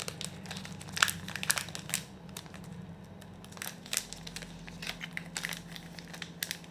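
Plastic wrapper of a Milka chocolate bar crinkling and crackling irregularly as it is handled and pulled open by hand, over a faint steady low hum.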